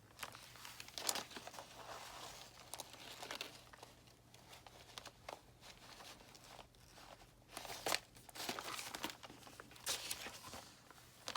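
Paper rustling and crinkling as the junk journal's paper signatures are handled and sewn with needle and thread, with a few sharper crackles about a second in and again twice near the end.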